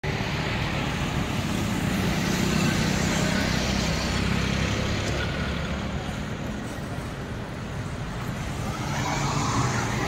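Steady truck engine and highway traffic noise, a low engine drone with road rumble that swells again near the end.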